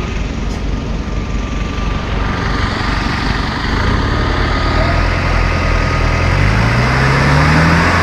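Modified off-road 4x4's engine running steadily, then revving up for the last couple of seconds as the truck climbs a rutted dirt track.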